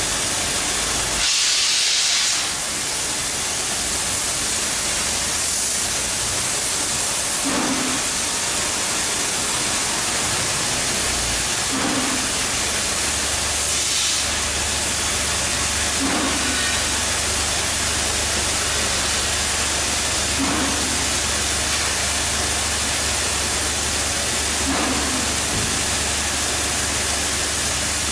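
Oxy-fuel cutting torches on a multi-head CNC cutting machine hissing steadily as they cut steel plate. There is a louder rush of gas about a second in, and a low hum joins about halfway through.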